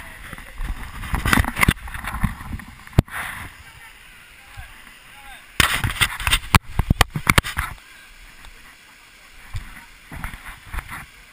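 Gusty rushing noise and sharp knocks on the microphone of a handheld action camera as it is moved about, with voices faintly in the background.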